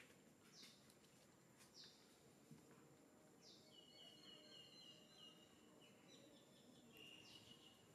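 Near silence with faint, high-pitched animal chirps: two short chirps in the first two seconds, a quick run of repeated chirps from about the middle, and another short run near the end.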